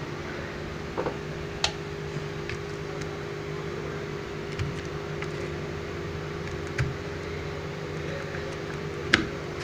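Steady fan hum, with a handful of sharp clicks and knocks as a RAM module is handled and pressed back into its motherboard slot. The loudest clicks come about a second and a half in and near the end.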